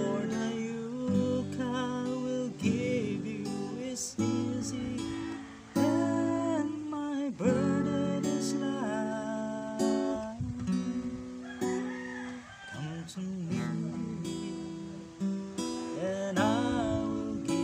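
A man singing with his own strummed acoustic guitar accompaniment, the voice gliding and holding notes over sustained chords.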